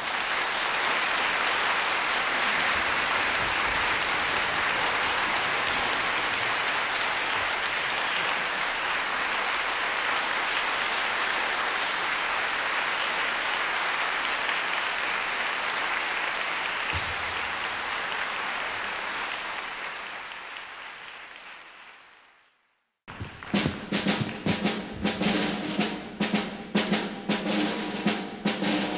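Concert-hall audience applauding steadily for about twenty seconds, then fading out. After a short break, the orchestra's snare drum, bass drum and cymbals start up with a run of sharp strokes.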